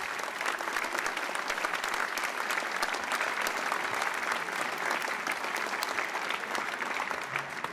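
Large audience applauding: dense, steady clapping that thins out near the end.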